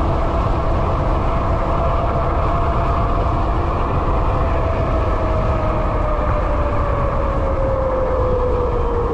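QS273 hub motor of a high-power e-bike whining at speed, its pitch slowly falling as the bike slows, over heavy wind rumble on the microphone.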